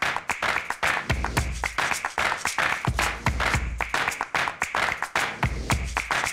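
Upbeat background music with a quick, busy percussive beat and a low bass note that returns about every second and a half.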